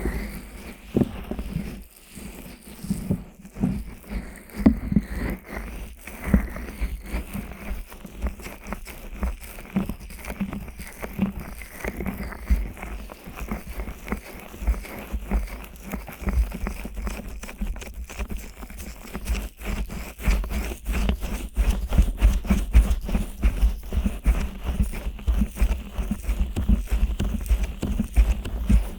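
Fingers rubbing and scratching the silicone ear flaps of a 3Dio binaural microphone: a steady run of close, muffled scrapes and soft thumps, quickening and growing denser about two-thirds of the way through.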